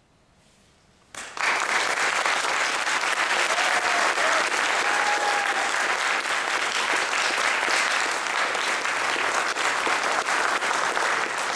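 Audience applause breaking out suddenly about a second in and continuing steadily.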